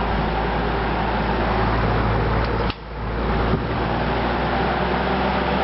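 Vintage early-1960s Electrohome 12-inch metal-bladed box fan running, a steady rush of air over a low motor hum. A bit under three seconds in, the sound drops off abruptly and builds back up as the three-speed switch is turned from low toward medium, with a sharp click about a second later.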